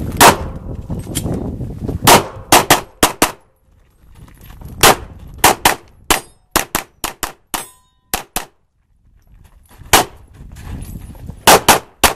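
A string of pistol shots fired during a timed competition stage, about twenty in all, coming in quick pairs and clusters with short pauses between groups.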